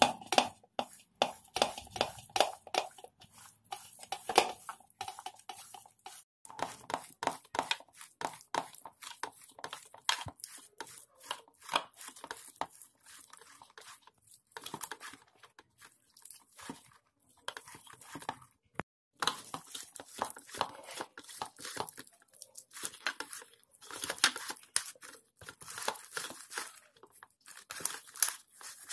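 Boiled potato being grated on a fine stainless-steel flat grater: many quick rasping strokes, with a couple of short pauses.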